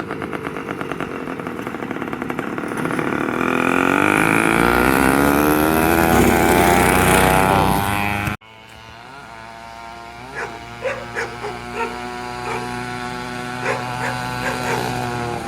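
Small motorbike engine accelerating hard, its pitch climbing over several seconds. After an abrupt cut, a small engine runs steadily at low speed with scattered clicks.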